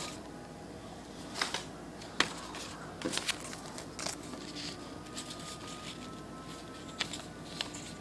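Origami paper modules being handled, folded and tucked together: paper rustling and creasing, with scattered crisp crackles and snaps, the sharpest a little over two seconds in.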